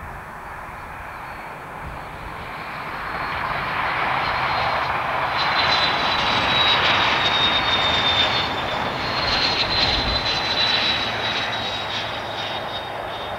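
Express passenger train passing at speed on the main line, its rushing noise building to a peak and then fading. A high whine drops a little in pitch as it goes by.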